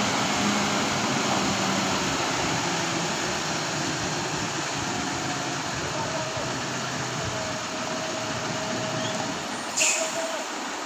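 Diesel engine of a large truck-mounted mobile crane running at low speed as the crane crawls around a tight bend. A brief sharp burst of noise stands out near the end.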